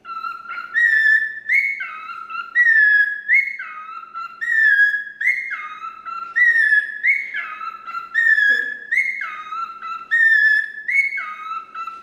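Cockatiel whistling a two-note phrase, a lower note then a higher one, repeated over and over a little more than once a second.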